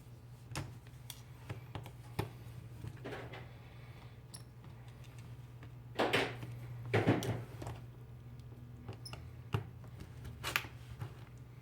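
Small clicks and ticks of a precision screwdriver and tools working the screws out of a smartphone's housing, over a steady low hum. About six and seven seconds in come two louder scraping rustles of handling.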